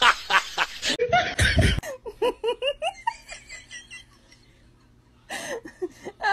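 A person laughing in quick repeated bursts, broken by a short low thud, then lighter giggling that rises and falls in pitch, a quiet second, and laughter again near the end.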